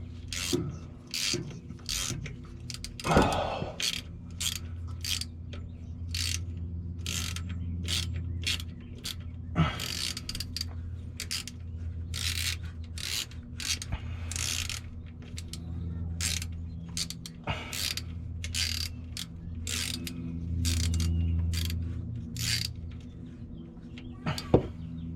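Ratchet wrench clicking in short, irregular strokes while backing out the 10 mm retaining screw of a transmission speed sensor, with a steady low hum underneath.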